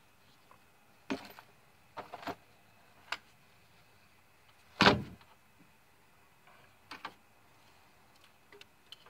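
Hand tools and metal engine parts being handled in an engine bay: scattered clinks and knocks, with one louder clunk about five seconds in.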